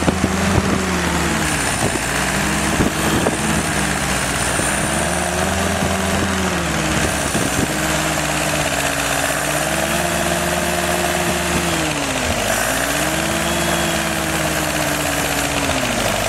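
Rebuilt Willys F-134 four-cylinder F-head engine running on a test stand, its speed raised, held for a few seconds and dropped back about three times. This is the break-in cycling between roughly 800 and 2200 rpm that beds in a new cam.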